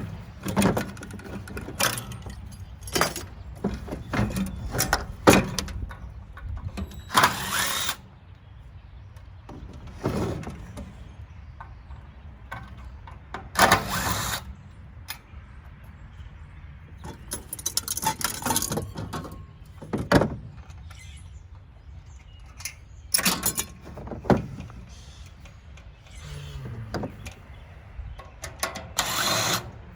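Tankless water heater being taken apart by hand: scattered knocks and clanks of metal parts, with several short bursts of tool or rattling noise about a second long.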